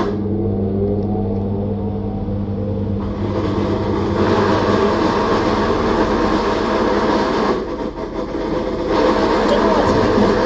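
Top-load washing machine's motor running with a steady hum and whine, its pitch shifting in the first few seconds as the motor changes speed.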